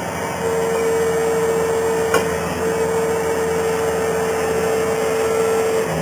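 Skid steer loader running under load, engine noise with a steady hydraulic whine that starts just after the beginning, drops out briefly with a click about two seconds in, and comes back.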